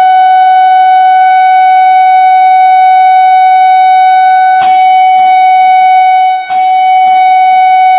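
A loud, steady, single-pitched tone with many overtones, played through a speaker to drive a wine glass at its resonant frequency so that it shatters. Two short cracks cut through the tone about halfway through and again later.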